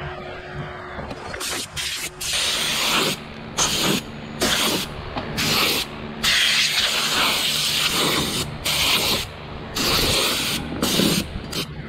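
Hand scraper or chisel scraping rotted core out of an opened fiberglass sailboat deck, in repeated rasping strokes of varying length with short pauses between.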